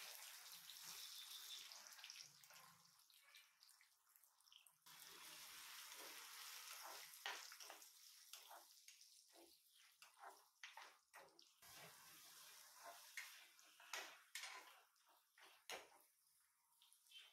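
Chopped onions frying in hot oil with a faint, steady sizzle, stirred with a metal spatula that scrapes and clicks against a non-stick kadai. The sizzle eases about halfway through, and the spatula strikes grow frequent and sharp.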